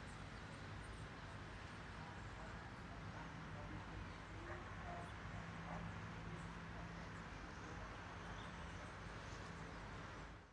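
Faint outdoor neighbourhood ambience: a steady low hum with scattered small, far-off sounds, fading out at the very end.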